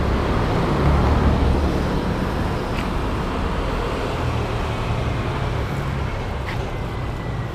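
Steady rush and rumble of passing road traffic, swelling about a second in and then slowly fading.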